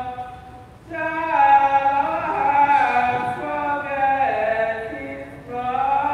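A group of men's and women's voices singing a hymn in slow, held phrases, with short breaks between phrases about a second in and again near the end.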